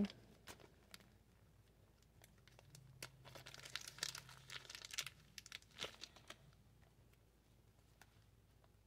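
Faint crinkling and tearing of a thin clear plastic sleeve as a cosmetic pencil is unwrapped, with scattered small clicks; the crinkling is loudest around the middle.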